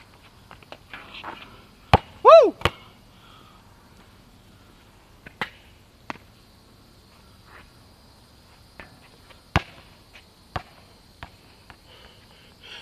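A basketball bouncing on an asphalt court: scattered single thuds a second or more apart, a few of them sharp. About two seconds in comes a short tone that rises and falls, the loudest sound here.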